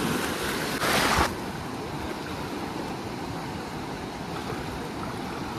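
Surf washing in the shallows with wind on the microphone, and a brief louder rush of noise about a second in.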